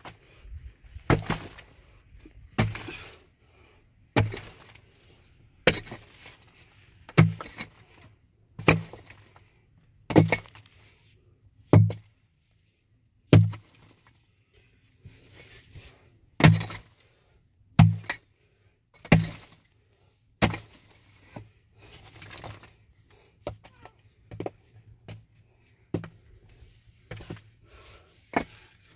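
Heavy blows struck one after another, each with a sharp crack and a low thud, about one every second and a half. In the last third they grow lighter and come a little faster.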